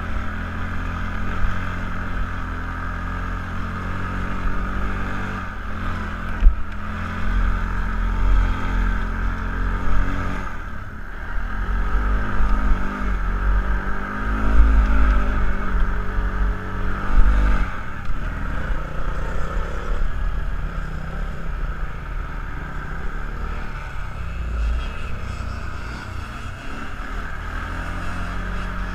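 Kawasaki ATV engine running under way off-road, the throttle rising and easing as it goes, with a heavy low rumble through the middle and two sharp knocks, one about six seconds in and one near seventeen seconds.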